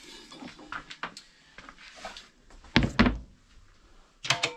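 Metal compressor parts being handled and set down: light knocks and rattles, then two heavy thuds close together about three seconds in, and a clank with a short metallic ring near the end.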